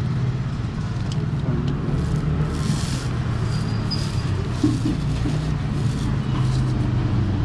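Steady low rumble of a running motor, with faint scattered ticks and rustles over it.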